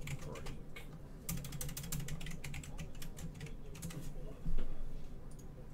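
Rapid, irregular clicking of typing on a computer keyboard, with a louder bump about four and a half seconds in, over a steady low hum.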